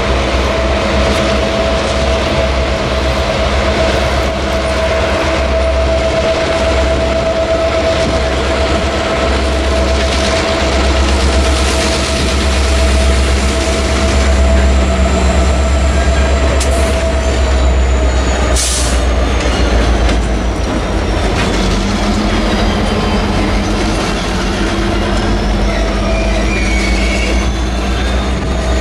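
Norfolk Southern diesel freight train rolling slowly past, its locomotives giving a steady deep rumble over the sound of the tank cars' wheels on the rails. Thin high-pitched wheel squeal glides up and down through the second half, with one short sharp noise about two-thirds of the way through.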